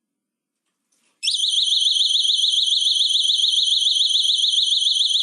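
Plug-in electronic alarm siren, set off by a Plug and Safe motion sensor as a door is opened. It starts abruptly about a second in as a loud, high-pitched electronic wail warbling rapidly, several times a second.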